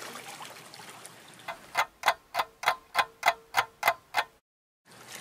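Ticking clock sound effect: about nine sharp, evenly spaced ticks, roughly three a second, beginning about a second and a half in over faint running creek water, then cutting off to dead silence near the end.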